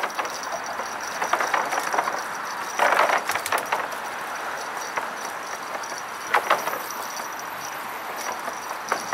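Bicycle riding over a bridge's bike path: a steady rushing noise with scattered sharp rattles and clicks, and a louder rattling burst about three seconds in.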